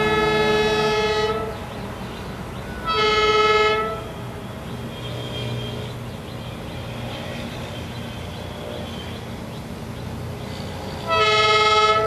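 A diesel train's horn sounds three times: a long blast that ends a little over a second in, a second blast about three seconds in, and a third starting about eleven seconds in. A steady low rumble runs between the blasts.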